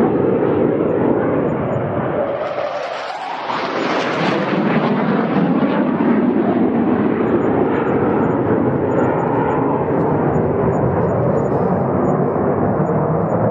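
Fighter jet engine noise, loud and continuous. About three seconds in the low rumble briefly drops away and the sound turns hissier and sharper, then the full noise returns.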